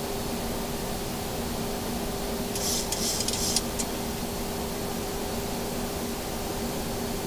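Steady background noise on a Boeing 737-800 flight deck in flight: an even air-conditioning and airflow hiss with a low, steady hum. About two and a half seconds in, a brief high hiss lasts for about a second.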